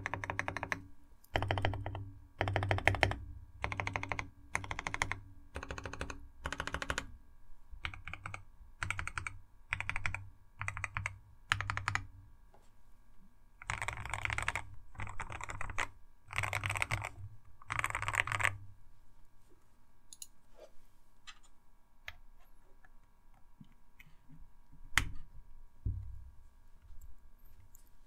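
Typing on a modded GK68x mechanical keyboard with C³ Banana Split switches that are lubed with Krytox 205g0 and filmed, Everglide Panda stabilizers that are clipped, band-aid modded and lubed, and 3mm acoustic foam dampening: the sound test of the build. Short runs of keystrokes come about once a second for roughly the first eighteen seconds, then thin to a few scattered key presses.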